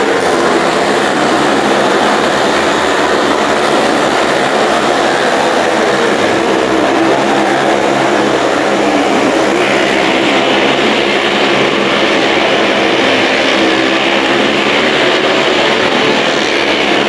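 Several motorcycles circling the vertical wooden wall of a well of death, their engines running together in a loud, continuous drone of overlapping, wavering engine notes. About ten seconds in, the sound turns brighter.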